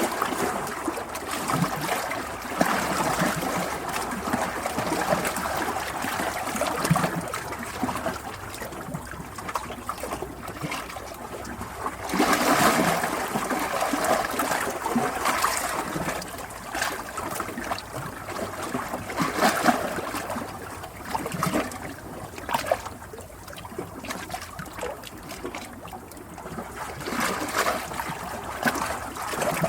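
Running water trickling and splashing, rising and falling in loudness, with a louder stretch of splashing about twelve seconds in.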